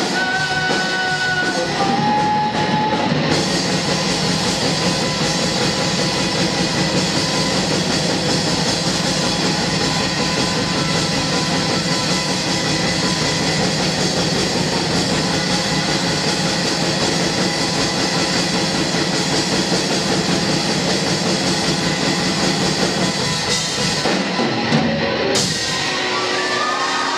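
Live heavy rock band playing: distorted electric guitars over a drum kit in one dense, steady wall of sound. The full-band sound breaks off near the end, leaving a few held tones.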